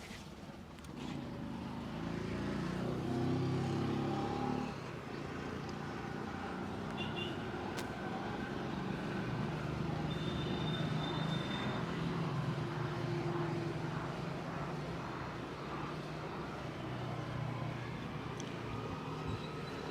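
Street traffic: vehicle engines running and passing, a steady low rumble that swells and eases, with a few faint sharp clicks.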